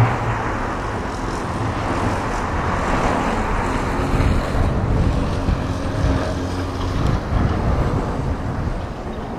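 Street traffic noise: the steady sound of motor vehicles passing on the road.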